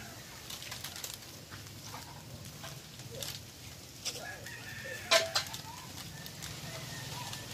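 A rooster crowing and chickens clucking, with the loudest call about five seconds in.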